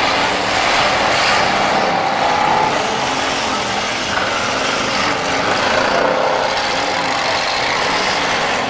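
Several demolition derby cars' engines running and revving together in a steady, loud din.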